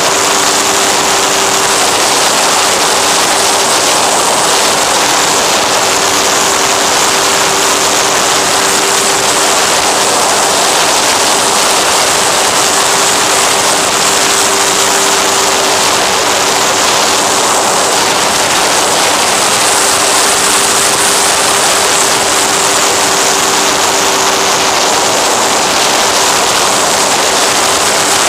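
FX-79 flying wing's rear pusher propeller and electric motor running steadily in cruise, a constant-pitch hum under loud wind rush on the onboard camera's microphone.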